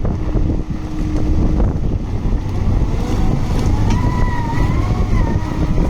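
Cat M316C mobile excavator's diesel engine running with a steady low rumble. From about three seconds in, a wavering whine rises in over it.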